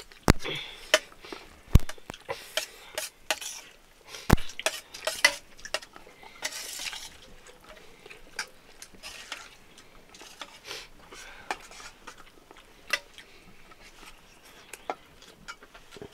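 Eating by hand from a steel plate: fingers mix and scoop rice and chicken gravy, with sharp clicks against the metal plate, loudest and most frequent in the first few seconds, then sparser.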